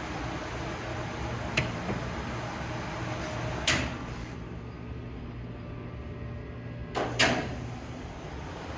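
ThyssenKrupp hydraulic elevator in operation: a steady low hum with a few knocks from its sliding doors, the loudest a pair of clunks near the end.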